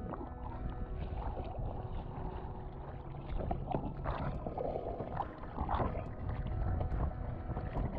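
Water sloshing and rumbling against a freediver's camera, a steady low rumble with short splashes throughout. Faint background music with held tones runs underneath.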